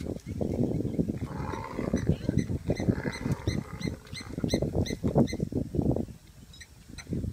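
A pack of African wild dogs at a kill, with dense low growling and scuffling. From about three to six seconds in comes a run of short, high, bird-like twittering chirps.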